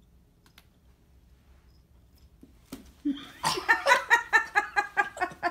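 A person laughing hard in a quick run of repeated bursts, about six a second, starting about three seconds in after a near-quiet start.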